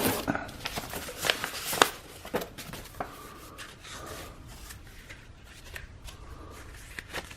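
Rustling and light clicks of items and packaging being handled during an unboxing, busiest in the first two seconds and then fainter.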